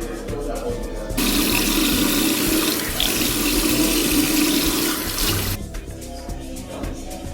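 Water running from a tap into a sink, turned on about a second in and off again some four seconds later, over background pop music.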